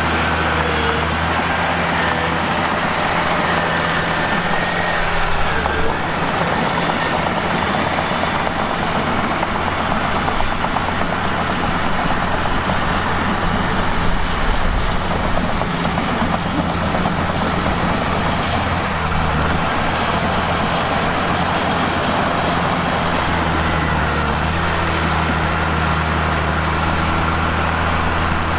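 Bulldozer's diesel engine running continuously, its low steady hum turning rougher and noisier through much of the middle before settling again near the end.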